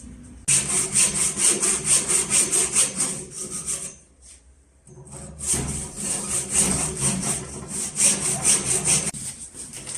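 Hand tool worked back and forth on wood in quick, even scraping strokes, about four a second, in two runs of some four seconds each with a short pause between.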